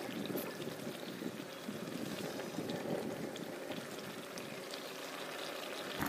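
Curry gravy simmering in a pot on the stove: a steady bubbling hiss with faint ticks now and then.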